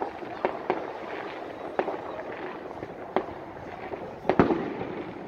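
Distant fireworks going off across the city: scattered sharp bangs every second or so, the loudest a quick double bang about four seconds in.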